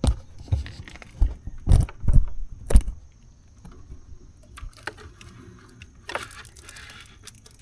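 Tools and small metal hardware being handled while working on a hot tub controller: about six sharp knocks and clinks in the first three seconds, then quieter scattered clicks and rustling.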